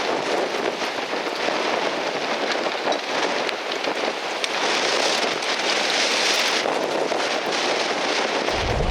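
Strong gusty wind rushing steadily, with a fine crackling patter in it. Near the end, heavy low wind buffeting on the microphone comes in.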